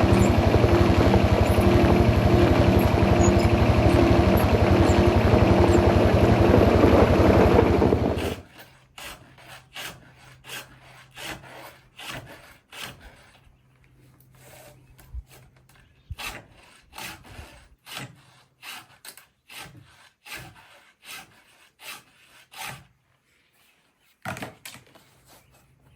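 An engine running steadily and loud, shut off about eight seconds in. It is followed by a long run of quieter, uneven rasping strokes, a file being worked on a chainsaw chain.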